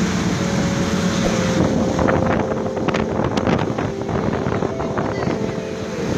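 Fishing boat's engine running steadily under wind noise on the microphone, with a cluster of short sharp sounds in the middle.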